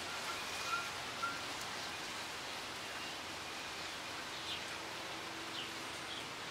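Breeze rustling through the leaves of native bush and palm fronds in a steady hiss, with bird calls over it: a few short notes in the first second or so, then brief higher chirps later on.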